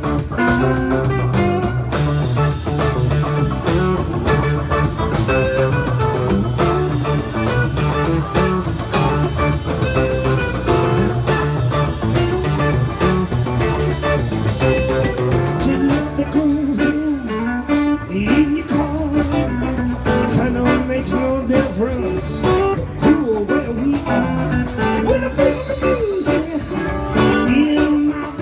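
Live band playing on electric guitars and drum kit to a steady beat. A melody with sliding, bent notes comes to the front from about sixteen seconds in.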